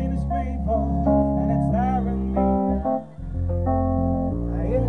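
Live pop music through a concert PA: a backing track of guitar and bass with a male voice singing short phrases. The bass drops out briefly about three seconds in.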